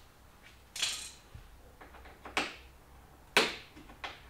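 Several sharp metallic clicks and clinks of hand tools and small parts being handled while working on a motorcycle, four of them clear and the loudest a little past three seconds in.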